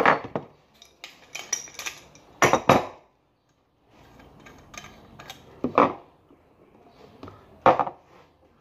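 Metal parts of a chrome basin faucet knocking and clinking as they are handled and fitted together, a handful of separate clanks a second or two apart.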